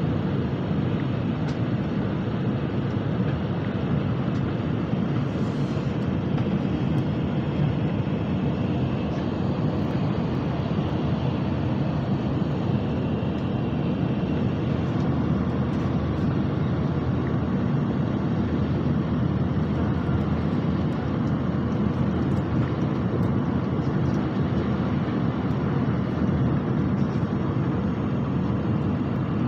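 Nozomi Shinkansen bullet train running at speed, heard from inside the passenger cabin: a steady, even low rumble of wheels and air with no breaks.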